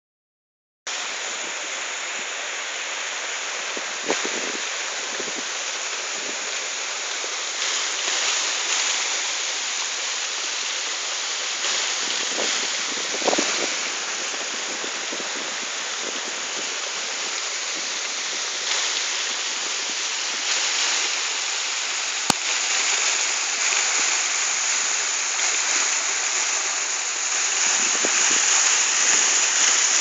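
Steady rushing of the 53 m Polska Skakavica waterfall, with a few brief bumps on the microphone and one sharp click.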